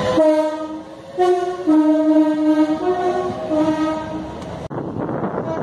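Passenger train's two-tone horn sounded as a run of alternating high and low notes. About four and a half seconds in, it cuts off suddenly to the noise of a train running past.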